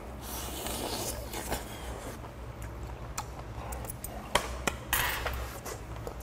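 Chewing and gnawing on a boiled lamb rib, then a run of sharp clinks from chopsticks and dishes on the table in the second half, the loudest a little past the middle.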